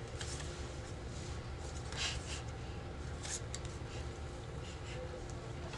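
Soft scraping and light tapping of paper or cards against a table, several short strokes with the strongest about two seconds in and again a little after three seconds, over a steady low hum.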